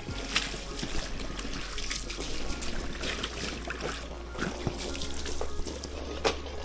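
Water gushing from an open garden hose and running and splashing across a concrete floor, with irregular sharper splashes.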